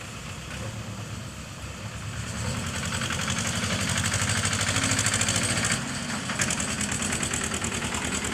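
Diesel engine of a JCB 3DX backhoe loader running with a steady low pulse, growing louder about two seconds in and working harder with a strong hiss for a few seconds, then dropping back about six seconds in.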